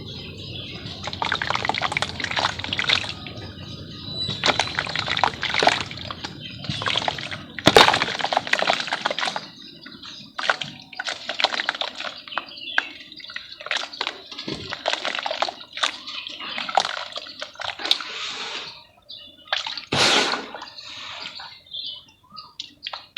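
Red mud crumbling in water: an irregular run of small crackles, splashes and sloshes as lumps break apart. The loudest splash comes about eight seconds in, and the sounds thin out toward the end.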